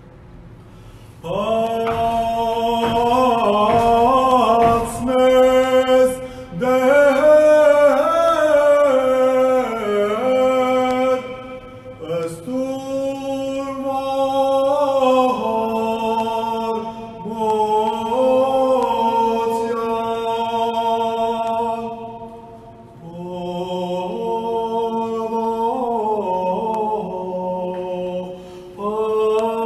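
Armenian Church liturgical chant sung by a single man's voice: long held notes with ornamented turns, in phrases broken by short pauses for breath.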